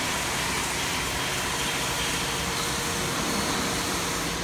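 Steady industrial machinery noise: an even hiss with a low hum under it, without breaks or strikes.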